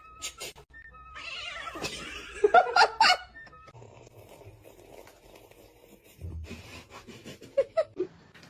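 A cat meowing briefly about two and a half seconds in, with scattered small clicks and knocks and a few short squeaky calls near the end.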